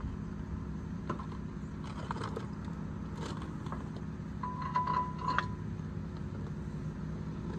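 Scattered light metallic clinks and clicks of brake hardware and hand tools being handled at a car's front wheel, over a steady low hum. Just past halfway there is a brief steady high tone mixed with sharp clicks.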